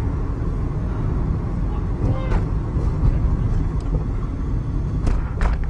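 Steady low rumble of a car's engine and tyres at freeway speed, heard from inside the cabin.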